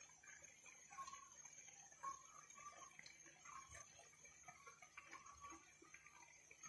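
Near silence: faint ticking and popping of pasta simmering in shallow water in a frying pan.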